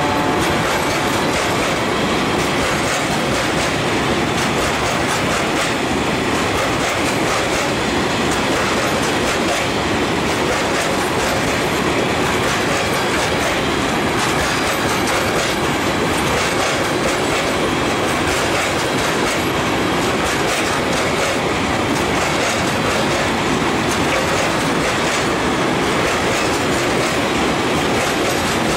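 Long freight train of open gondola wagons rolling past, steel wheels running over the rails in a steady, unbroken rumble and clatter.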